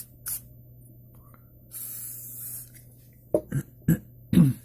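Aerosol can of Ballistol oil sprayed onto a rag: a short puff, then a hiss lasting about a second. Near the end come several short, loud voice sounds, the last the loudest.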